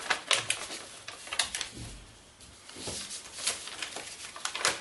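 Stiff silver and gold kraft paper crackling and rustling as it is folded and pressed flat by hand: scattered sharp crinkles, with a quieter spell about two seconds in.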